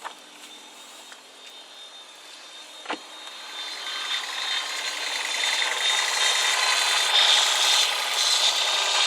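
A strange rasping, grinding noise from under the bonnet of a 2020 Toyota Prius, with steady whining tones mixed in. It sets in after a sharp click about three seconds in and grows louder.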